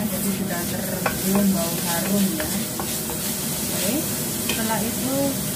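Minced meat and spring onion sizzling in a hot stainless steel wok while a wooden spatula stirs and scrapes them, with frequent short scrapes and knocks of the spatula against the pan.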